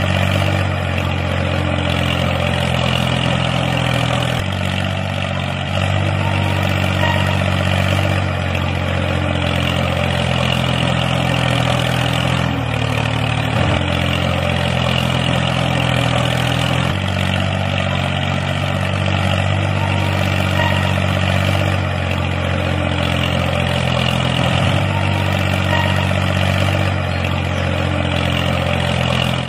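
Tractor engine running steadily with a low, even drone, its tone shifting slightly every several seconds; it cuts off suddenly near the end.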